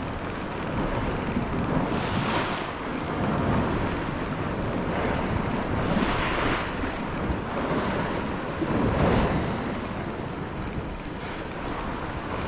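Sea waves washing and surging, with wind buffeting the microphone; the wash swells up several times, about every three to four seconds.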